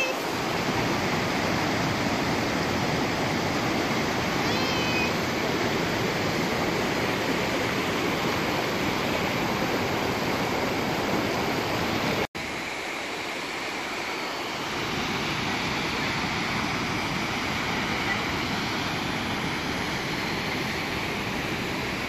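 Fast, swollen moorland stream rushing over stones in a steady wash of white water. A cut about twelve seconds in switches to a slightly quieter stretch of rapids.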